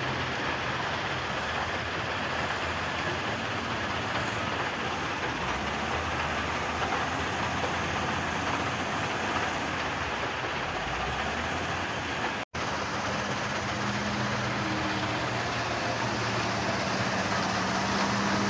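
Heavy construction machinery running with a steady, dense mechanical noise over a low diesel engine hum. It cuts out for an instant about twelve seconds in, then carries on.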